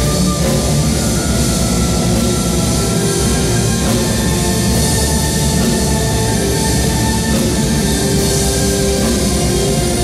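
Folk-metal band and symphony orchestra playing loud music together: a drum kit under dense, held notes.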